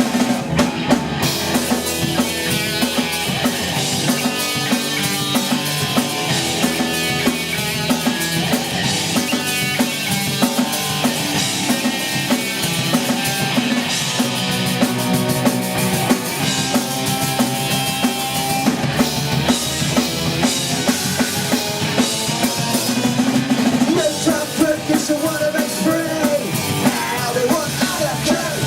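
Live punk rock band playing an instrumental passage with no vocals: a drum kit pounding out a steady beat under loud bass and electric guitar.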